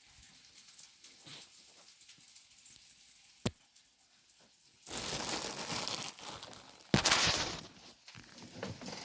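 Rustling and crinkling handling noise, faint at first, with one sharp click about three and a half seconds in, then two louder stretches of crinkling or tearing: one lasting about a second and a half, and a shorter, louder one near the end.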